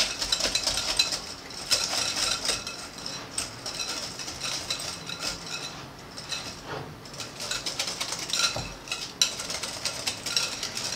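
Metal wire whisk beating eggs into pumpkin puree in a glass bowl: rapid, continuous clicking and scraping of the wires against the glass, breaking the eggs up so they blend fully into the puree.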